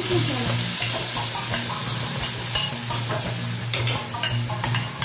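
Green curry paste sizzling loudly as it hits hot oil in a steel pan. A few short clinks and taps come through the sizzle near the end.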